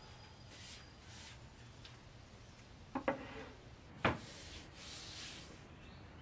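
Wood knocking on wood: two quick knocks about three seconds in and a louder one a second later, then a short rubbing hiss.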